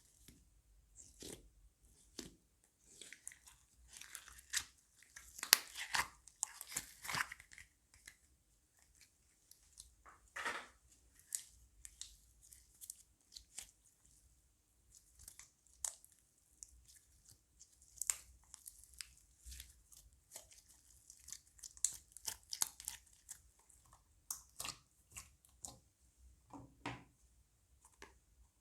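Crunchy slime being squeezed and mixed by hand, giving irregular crackles and crunchy pops in scattered clusters.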